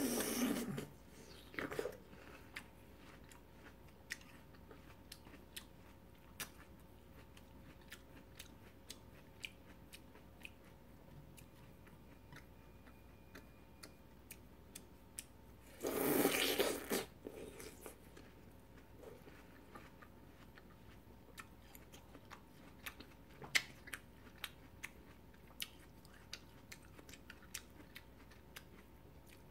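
Close-up eating sounds of a person biting into slices of fresh watermelon. There is a crunch at the start and a louder, longer crunch about halfway through, with soft chewing clicks in between.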